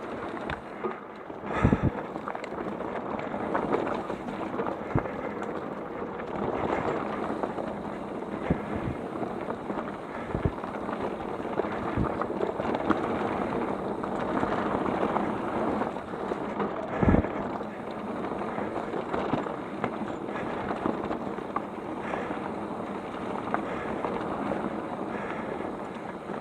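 Mountain bike rolling down a rough dirt trail: steady tyre and drivetrain rattle with wind on the microphone. Several sharp thumps sound as the bike hits bumps, the loudest about two seconds in and again about seventeen seconds in.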